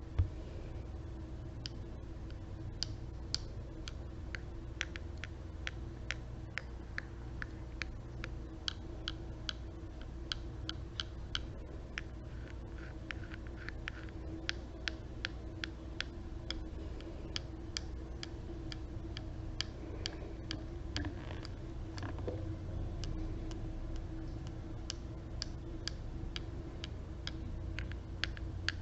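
Light, crisp tapping clicks, roughly two a second and a little uneven, over a steady low hum.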